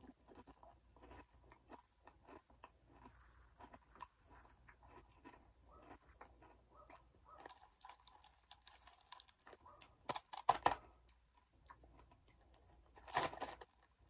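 Close-up chewing of crunchy Funyuns onion-flavoured rings, heard as a quiet run of small irregular crunches, with two louder bursts of crackling about ten and thirteen seconds in.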